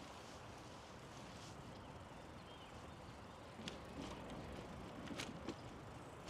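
Faint steady rolling noise of a touring bicycle riding along a paved trail, with a few sharp clicks and knocks from about three and a half seconds in.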